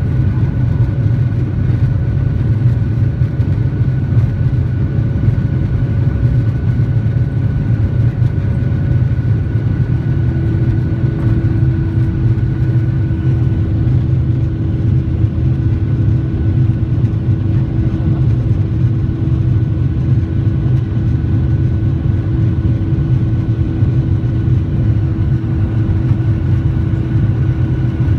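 Boeing 737-900ER's CFM56 jet engines running steadily at high power, a deep rumble with steady whining tones. About ten seconds in, the pitch changes: one mid tone fades and a lower steady hum takes over.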